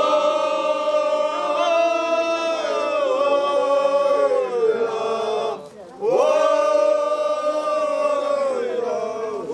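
A group of voices chanting in unison in long drawn-out held phrases, a Circassian wedding chant. The chanting breaks off briefly for breath a little under six seconds in, then the next phrase starts.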